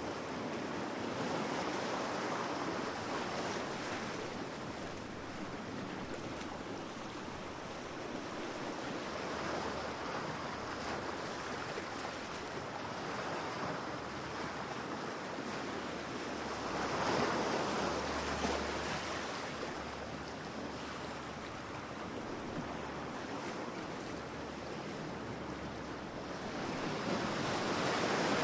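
Ocean waves breaking and washing on a beach, a steady surf that swells and eases every few seconds, with a louder wave about two-thirds of the way through.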